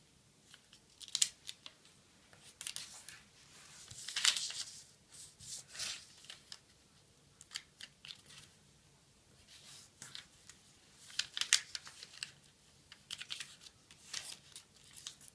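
A square of origami paper being folded edge to middle and creased by hand: short, irregular bursts of paper rustling and crinkling, with a longer rustle about four seconds in.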